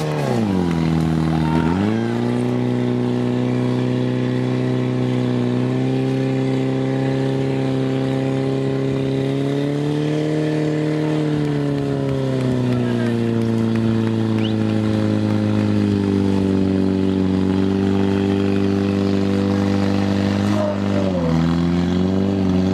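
Portable fire pump's engine running hard at high revs while it feeds water to the attack hoses. The pitch sags and recovers about a second in, rises a little around the middle, and sags again near the end.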